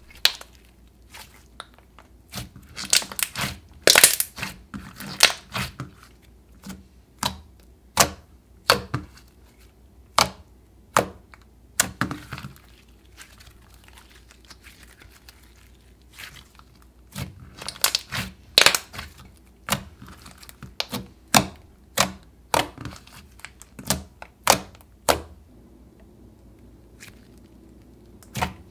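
Clear-base slime mixed with clay being kneaded, stretched and pressed by hand, giving irregular sharp clicks and pops in clusters, with quieter stretches in between.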